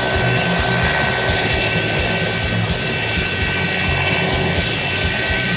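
US Coast Guard MH-65 Dolphin helicopter hovering low, its rotor beating in a rapid steady chop under a continuous high turbine whine.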